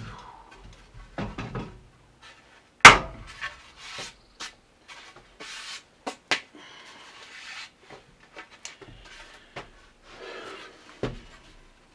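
Wooden knocks, clatter and scraping of boards being handled, with one sharp, loud knock about three seconds in.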